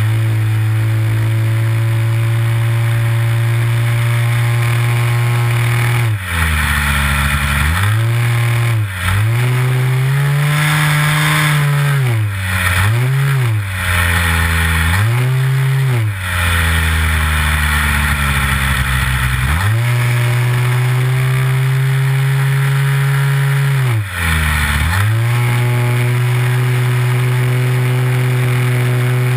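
Nitro glow engine of a Big Stik 60 RC plane, heard close up from the plane itself, running loud at a steady high pitch. Its speed drops and climbs back again around six seconds in, several times between about eight and sixteen seconds, and once more near twenty-four seconds.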